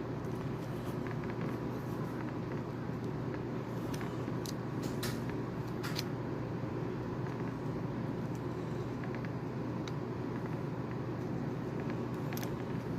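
Steady low background hum and hiss, with a few faint light clicks about four to six seconds in.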